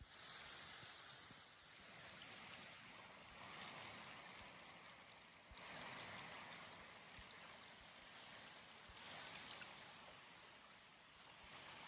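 Faint rush of a river flowing, a steady hiss of water that swells and eases every few seconds.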